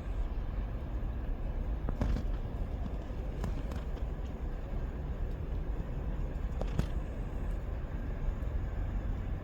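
Steady low outdoor rumble, with a few faint short clicks about two, three and a half, and seven seconds in.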